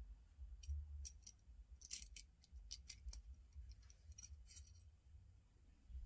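Light clicks and ticks of small metal knife parts as the blade and slider of a disassembled OTF knife are handled. There are about a dozen scattered clicks, some in quick pairs and clusters, with the busiest stretch around two seconds in.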